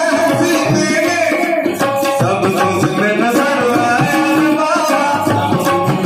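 A man singing a Hindi devotional bhajan to Sai Baba of Shirdi into a microphone, with tabla accompaniment keeping a steady beat.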